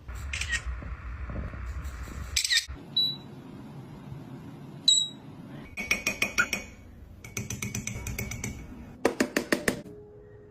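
Parrot vocalizing: a call and two short high whistles, then several runs of quick, evenly spaced clicking sounds.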